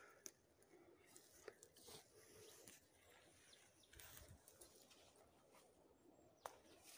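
Near silence with faint crunching footsteps on dry grass and pine needles, and a few light clicks.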